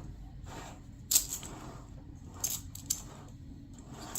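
Plastic magnetic toy blocks clicking and clacking as they are snapped together, with a few sharp clicks over quieter handling. The loudest click comes about a second in.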